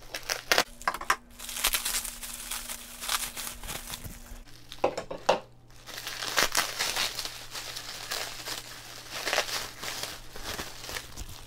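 Plastic bubble-wrap packaging crinkling and rustling as it is cut open and pulled apart by hand, in irregular bursts of crackle.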